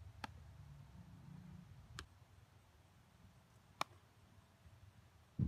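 Faint outdoor background with a low wind rumble on the microphone for the first two seconds, broken by three sharp, faint clicks about two seconds apart.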